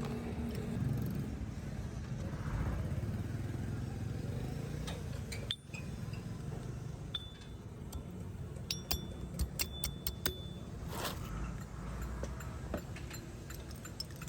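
A steady low rumble with a cluster of light metallic clinks, a few of them ringing briefly, about two-thirds of the way through.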